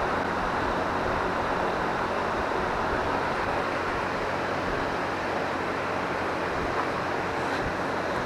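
Steady rushing background noise with a faint low hum underneath, unchanging throughout.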